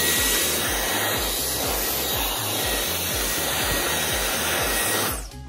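Dyson Cyclone V10 cordless stick vacuum running with its crevice tool on a hard surface: a loud, steady rush of air with a thin high whine, cutting off about five seconds in.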